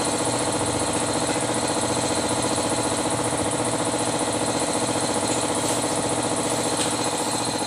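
An engine running steadily at idle, an even hum with a fast regular throb.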